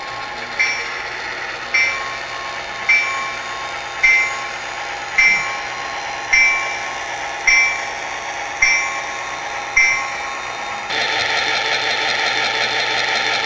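Bell of an O scale model diesel switcher's sound system, ringing evenly about once a second with a clear ringing tone. Near the end a louder, steady mechanical running noise takes over and the bell strokes stop.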